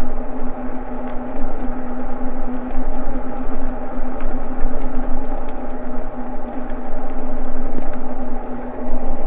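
Eahora Juliet e-bike riding along a paved trail: a steady, even-pitched drone from the moving bike's motor and tyres, with wind rumbling on the microphone and a few faint ticks.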